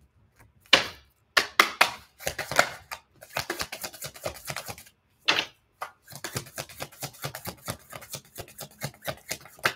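A tarot deck being shuffled and handled by hand: a few sharp single card snaps, then long runs of rapid papery clicks.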